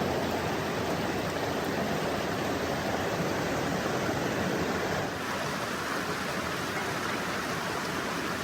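Steady rush of fast-flowing creek water or a waterfall, changing in tone about five seconds in.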